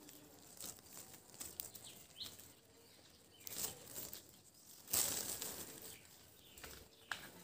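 Leaves and twigs of a round-lemon tree rustling in short bursts as a hand tugs at a fruit to pick it, with the loudest rustle about five seconds in.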